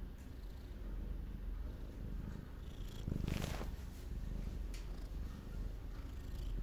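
Domestic cat purring steadily while being stroked, the purr coming in pulses about once a second. A brief, louder rustle about three seconds in.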